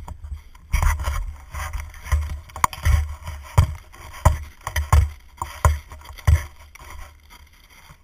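Rough thumping and scraping in snow, a heavy thump about every three-quarters of a second, from a person scrambling and tumbling as a Labrador retriever barrels into them. It is heard close on a body-worn camera, with handling rumble. The thumps stop after about six and a half seconds.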